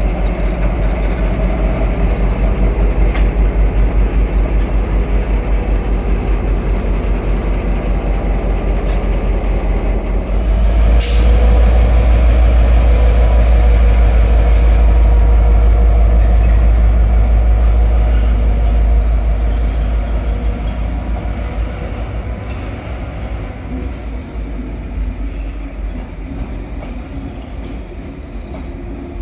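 N Class diesel-electric locomotive running with a deep pulsing throb. About ten seconds in it powers up louder, with a short sharp noise, as it moves the train. The engine then gradually fades over the last third.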